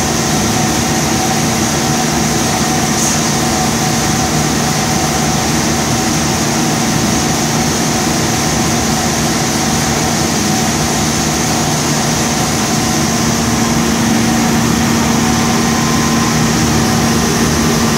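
Unique 2722 CNC machining center idling between cuts, its spindles running: a steady machine drone with a few held tones over an even noise, with no cutting.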